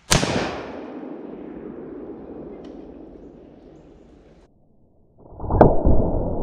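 An AR-15 rifle fires a 5.56 green-tip penetrator round at a ceramic armour plate: a sharp crack with a long echo fading away over about four seconds. About five and a half seconds in comes a second sharp crack over a steady rushing noise.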